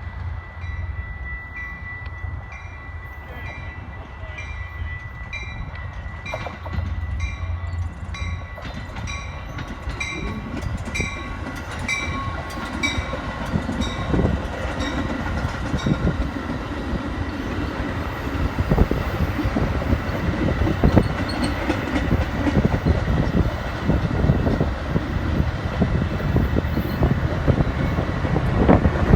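Metra commuter train pulling out behind an EMD F59PHI diesel locomotive: the engine's low rumble builds as the train gathers speed and the wheels rattle over the rails louder and louder. Through the first half the locomotive bell rings about once a second, then fades out.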